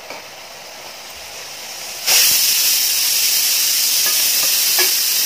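Pressure cooker whistling: a loud, even steam hiss from the weight valve that starts suddenly about two seconds in and cuts off sharply near the end. It is the cooker's first whistle, the sign that it has reached pressure.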